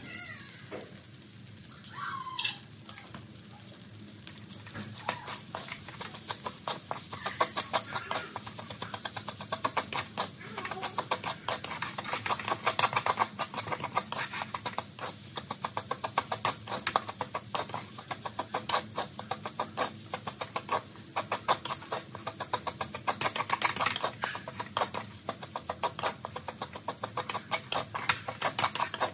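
Wooden spatula scraping and knocking against a metal wok as fried rice is stirred and tossed, a fast, uneven run of scrapes and taps that sets in about four seconds in and carries on. A brief chirp sounds about two seconds in.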